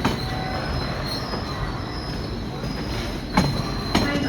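Freight train wagons rolling past with a steady high-pitched wheel squeal over a rumble, and two sharp clacks of wheels over rail joints near the end.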